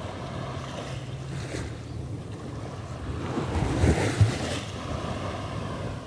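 Small waves washing over a shallow sandy shore, with wind noise on the microphone. About four seconds in, a louder burst with a couple of low thumps, like a gust buffeting the microphone.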